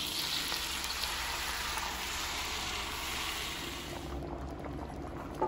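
Steady sizzling hiss of shredded pork frying in hot oil as blended guajillo chile salsa is poured in through a plastic colander. About four seconds in it drops to the quieter bubbling of the red sauce simmering in the pot.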